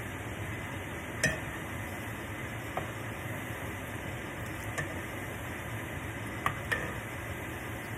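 Hushpuppies deep-frying in hot oil in a skillet, a steady sizzle, while a metal spoon turns them and clinks sharply against the pan about five times, the loudest a little over a second in.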